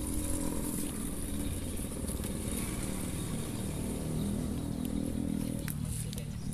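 A steady, low engine-like hum with a slightly shifting pitch, and a few faint clicks.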